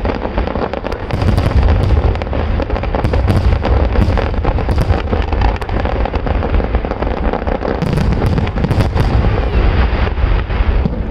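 Fireworks barrage: dense, overlapping booms over a continuous low rumble, with quick crackling bursts throughout.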